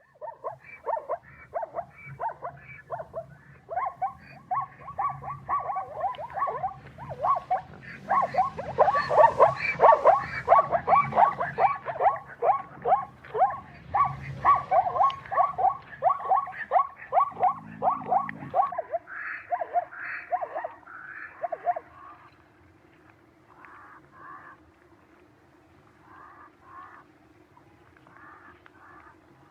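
An animal calling in a fast series of short, falling yelps, about three a second, loudest about a third of the way in. Past the middle the calls turn fainter and come in small groups.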